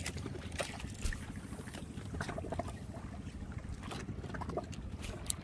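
Bangka's motor running with a steady low rumble, with water splashing against the hull and scattered light clicks.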